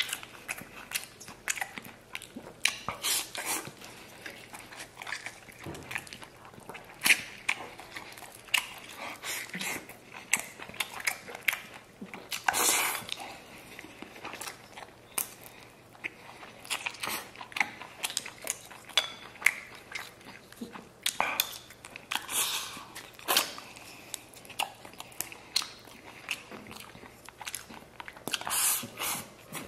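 Close-miked mouth sounds of eating red-braised lamb and rice: chewing and biting, with many sharp wet smacks and clicks and a few longer noisy sucks.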